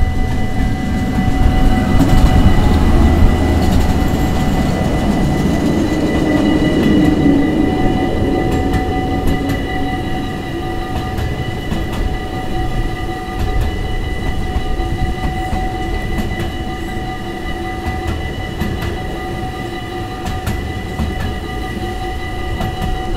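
Speno rail-grinding train rolling past: a heavy rumble of wheels on rail, loudest for the first several seconds and then easing off, over steady high-pitched whining tones.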